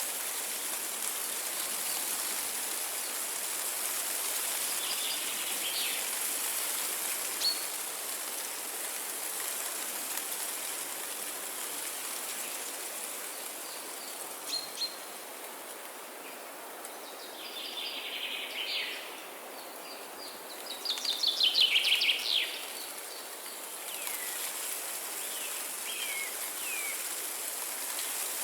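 Wild birds calling and singing over a steady outdoor hiss. Scattered short chirps build to a rapid trilled song phrase, the loudest sound, about three-quarters of the way through, and a few falling chirps follow near the end.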